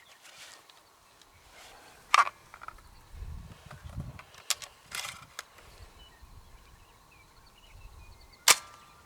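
A few sharp clicks and knocks, one about two seconds in, a couple around the middle and the loudest near the end with a brief ring after it.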